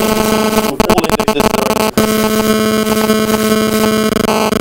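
A loud, harsh electronic buzz at a steady pitch drowns out the room, breaking off for an instant about a second in and again at two seconds.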